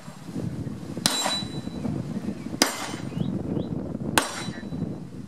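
Three pistol shots, about a second and a half apart.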